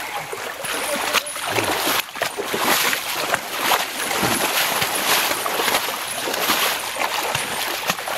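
Creek water sloshing and splashing around a person wading through it in waders, in uneven surges with each step.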